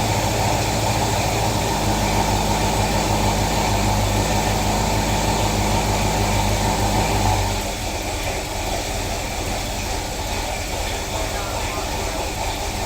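1972 Chevelle SS V8 idling steadily on a freshly installed Holley Sniper EFI. The sound changes and drops a little in level about two-thirds of the way through.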